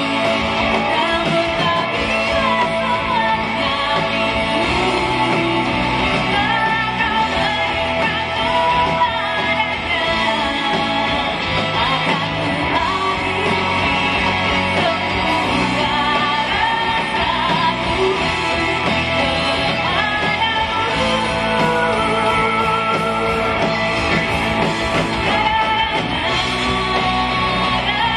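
Live pop-rock band in concert: a woman singing over electric guitars, keyboard and drums, heard from the audience.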